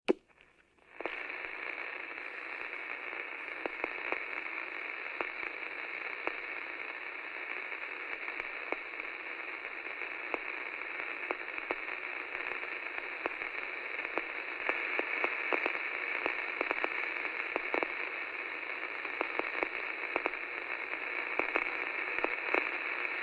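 Steady static hiss with scattered crackles, narrowed like sound from an untuned radio, starting about a second in after a short click.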